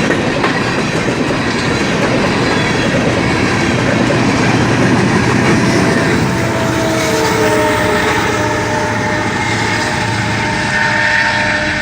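Freight train cars rolling past with a steady rumble and wheel noise. About halfway through, a few steady tones join in and dip slightly in pitch.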